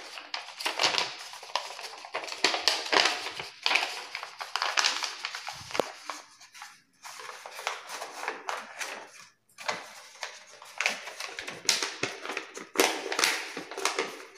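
Brown paper pattern pieces rustling and crinkling as they are folded, pressed and lifted by hand, in irregular crackly bursts with two short pauses.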